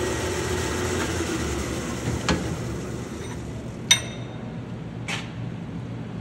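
Oster 792-A power threader running with a steady hum and hiss as its oil-flooded die head cuts threads on a rod; the cutting noise eases about three seconds in. A sharp metallic clink with a short ring follows, then a softer knock.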